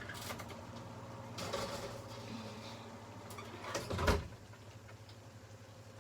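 Kitchen clatter of a tray going into an oven, then the oven door shutting with a thud about four seconds in, over a steady low hum.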